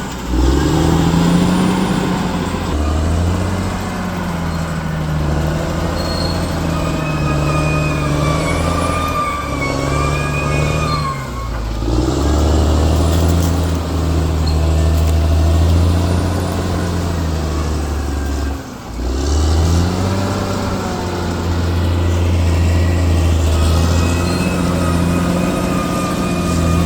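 Bulldozer's diesel engine working, its pitch rising and falling as the load changes, with a high squeal for a few seconds in the middle. The sound drops out briefly twice.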